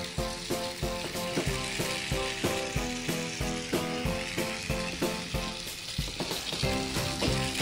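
Capsule Plarail toy train (Percy pulled along by a small battery motor car, with wagons of plastic balls) running around plastic track: a steady buzzing whir from the little motor and gears, with regular clicking about three to four times a second.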